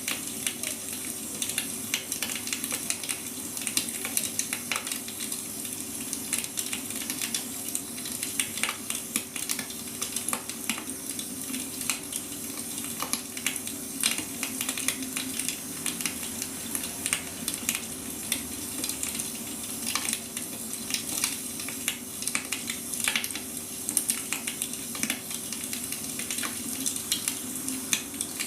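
Firewood burning, crackling with irregular pops and snaps over a steady hiss, with a faint steady hum underneath.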